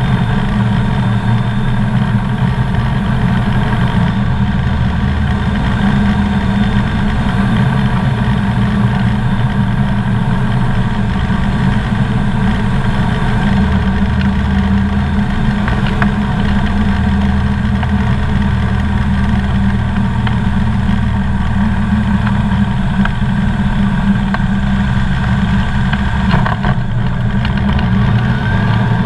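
Engine and propeller of a Comco Ikarus C42B ultralight droning steadily inside the cockpit at reduced power on final approach, the low hum shifting slightly a few times. A short bump near the end as the wheels touch down on the runway.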